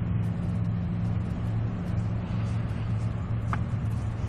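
Steady low drone of a car engine and road noise, heard from inside the cabin.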